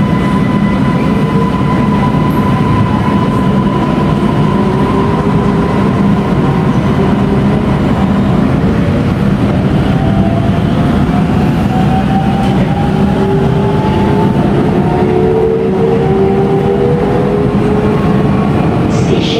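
Inside a Siemens Inspiro metro train pulling away from a station: steady rumble of the running train with a whine from the traction motors, several tones climbing slowly in pitch from about halfway as the train gathers speed. A short click near the end.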